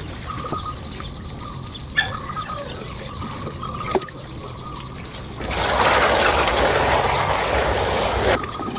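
Water trickling steadily, then a louder rush of pouring or gushing water for about three seconds in the second half that cuts off suddenly. Faint repeated calls sound behind it.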